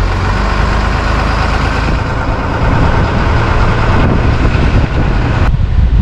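Tow truck's engine and road noise heard from inside the cab while driving, a steady low rumble with hiss. The hiss drops off sharply about five and a half seconds in while the rumble goes on.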